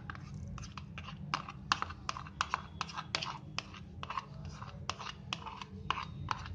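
A spoon scraping and tapping against a bowl in a quick, irregular run of small clicks as khoya is spooned into the carrot halwa.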